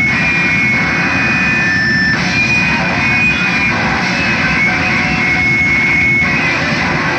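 Noise music played live: a loud, dense, steady wall of noise with thin high whistling tones that waver and come and go.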